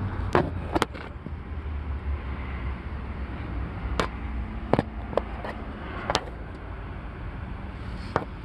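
Low, steady car rumble with a handful of sharp, irregularly spaced clicks over it.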